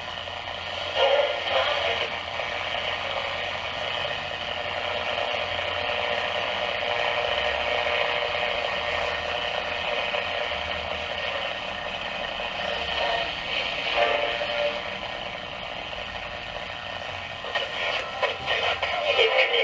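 Pilot tube radio's speaker giving off a steady hiss of static, rising and falling slightly in level, with brief louder crackles about a second in, about two-thirds of the way through and near the end.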